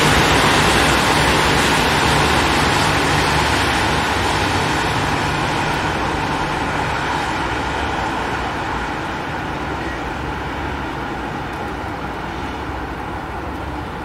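City road traffic noise: a steady rush of engines and tyres, with a low engine hum that dies away in the first few seconds. The whole sound slowly fades and grows duller.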